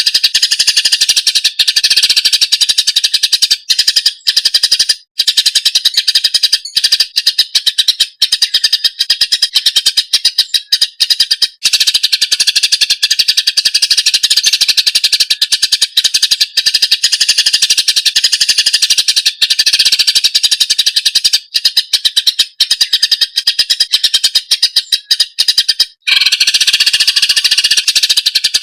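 Greater green leafbird (cucak ijo) song: a loud, dense, very rapid high-pitched chattering that runs on almost without a break, pausing briefly near the end.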